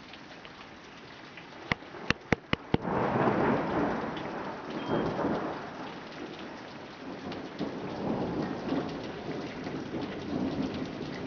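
Tropical storm rain falling steadily. About two seconds in, five sharp cracks come in quick succession, then a long roll of thunder rumbles on over the rain, swelling and easing through the rest.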